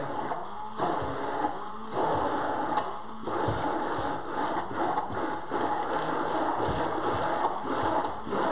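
Pampered Chef Flex Plus cordless immersion blender running at its highest speed, its blade churning a thick avocado dip in a tall beaker. The sound dips briefly a few times in the first three seconds, then runs steadily.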